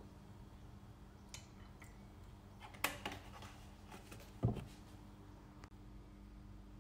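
Quiet kitchen handling noises over a low steady hum: a sharp click about three seconds in, then a dull thump a second and a half later, the loudest sound.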